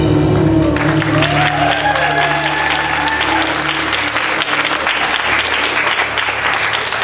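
Belly-dance music stops about a second in, leaving a low held note that fades out over the next few seconds, and the audience breaks into applause with a few whoops.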